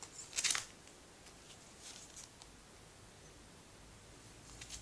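Plastic comic bags rustling as bagged-and-boarded comics are handled, with a short, sharp crinkle about half a second in and lighter rustles around two seconds and near the end.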